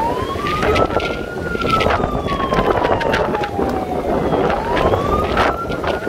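Police car siren wailing: the pitch climbs for about a second and a half, falls slowly for about three seconds, and climbs again about four seconds in. It sits over a steady rushing noise.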